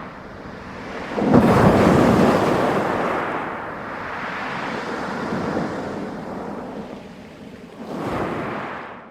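Sea waves breaking on a pebble beach: a big wave crashes about a second in and its wash runs on over the stones for several seconds, then a smaller wave breaks near the end.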